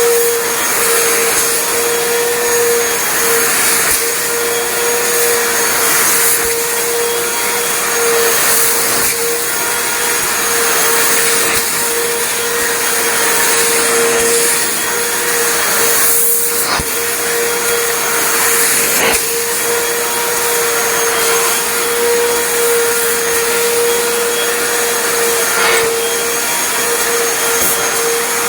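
Hoover Floormate FH40150 hard floor cleaner running: a loud, steady motor whine with a constant tone over a dense rush of air. Two brief knocks come in about two-thirds of the way through.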